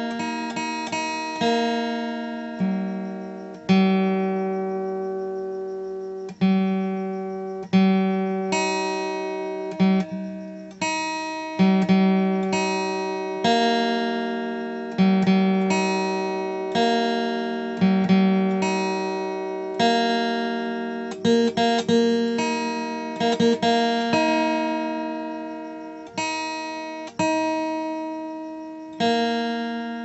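Background music: a slow acoustic guitar piece, single plucked notes and chords that ring out and fade, with a quicker run of notes a little past the middle.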